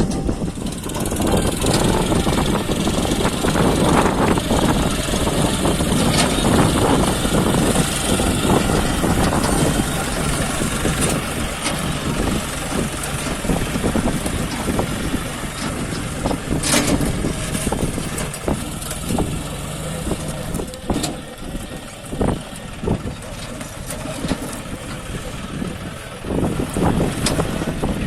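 John Deere 5050D tractor's 50 HP diesel engine running hard under full load. Its level dips somewhat in the later part and rises again near the end.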